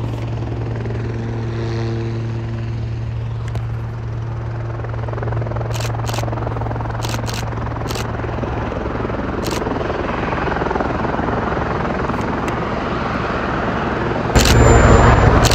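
Helicopter running on the ground with its rotors turning: a steady low engine-and-rotor drone that builds gradually, with a sudden jump in loudness near the end.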